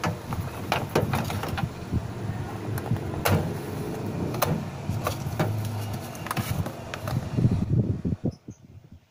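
Hands handling a plastic Polaroid Supercolor Esprit instant camera: irregular clicks and knocks as it is turned and its pop-up flash bar is folded shut. A steady low rumble underneath drops away abruptly near the end.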